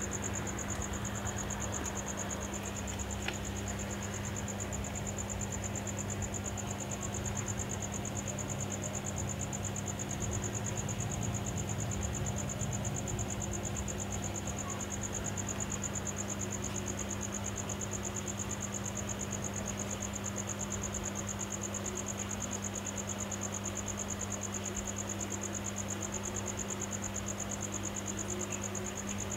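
An insect trilling steadily, a high-pitched and rapidly pulsed trill, over a steady low hum.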